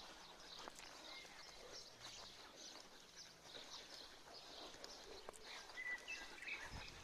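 Faint birdsong from several small birds: scattered high chirps throughout, with a clearer whistled note and a few chirps about six seconds in. A few soft clicks among them.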